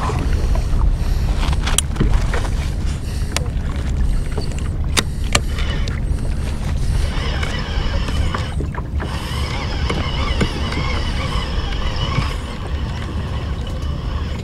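Water sloshing against a fishing kayak's hull with wind on the microphone, a steady low rumble, with a few sharp clicks in the first half. From about halfway in, a fishing reel whirs faintly as line is cranked in.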